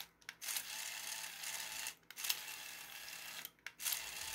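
Small TT gear motor whirring through the 3D-printed plastic gear train and tracks of a toy bulldozer, running in stretches of about a second and a half with brief stops between as the remote switches it between forward and reverse.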